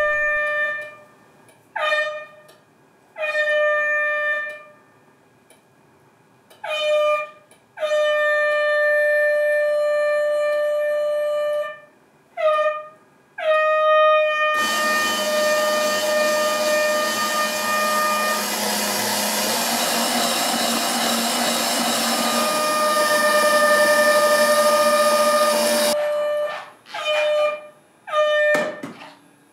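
A homemade Arduino alarm clock's small speaker sounds its alarm: a buzzy, mid-pitched electronic tone repeated in beeps of uneven length, some short and some several seconds long. A little past halfway, a loud steady mechanical running noise from the clock's banknote shredder motors joins for about ten seconds. The last few beeps come alone before the beeping stops near the end.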